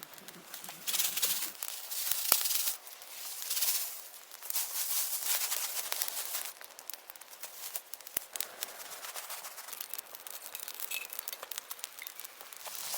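Rustling and crinkling in irregular bursts, with a few sharp clicks or snaps.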